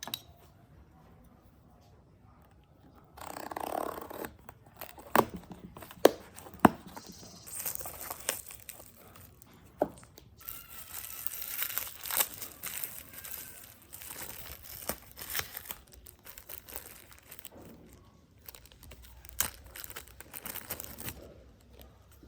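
Hands working on small plastic earbud parts: rustling and scraping, broken by several sharp clicks and taps, starting about three seconds in.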